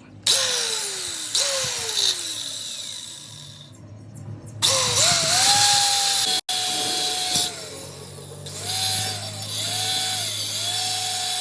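Handheld electric power tool running in bursts. Twice near the start it is triggered briefly and its pitch falls as it spins down. From about four and a half seconds it runs steadily, its pitch dipping and rising again several times.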